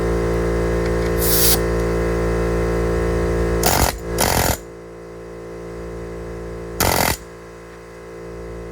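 Pneumatic impact wrench on a blue air hose working on the front hub assembly bolts: a loud, steady buzzing run of about four and a half seconds, with short bursts of air hiss, then a quieter steady hum and one more hiss burst about seven seconds in.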